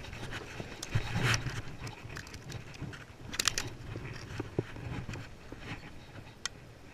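Rustling, scraping and small clicks of a fly rod, reel and loose fly line being handled on jetty rocks, over a low rumble. The sharpest clicks come about a second in and about three and a half seconds in.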